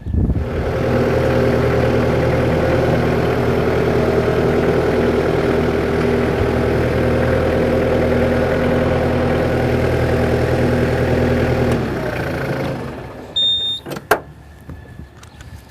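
New Holland Boomer 50 compact tractor's diesel engine running steadily while the tractor creeps forward in low range over the mid-mount mower deck. About twelve seconds in the engine note drops and fades away, and a short knock follows.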